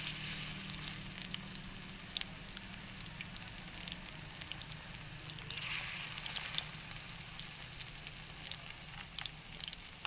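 Masala-coated fish pieces shallow-frying in hot oil in a black frying pan: a steady sizzle dotted with small pops and crackles. The sizzle swells about six seconds in as the pieces are turned with a spatula.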